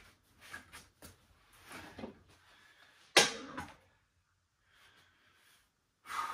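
Soft shuffling movement sounds of a person getting up and moving about a small carpeted room, with one sharp knock about three seconds in, the loudest sound.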